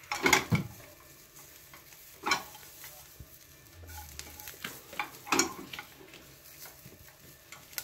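Carrot kinpira stir-frying in an oiled pan: a low sizzle with three louder stirring strokes against the pan, a couple of seconds apart.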